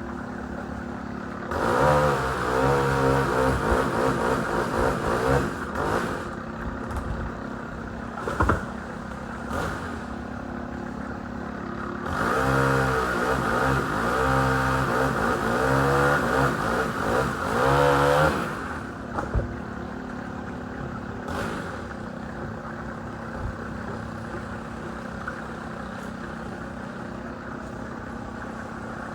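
Tree crew's engine-powered equipment running steadily, with a second engine revving up and down in two long stretches that rise and fall in pitch, and a few knocks between them.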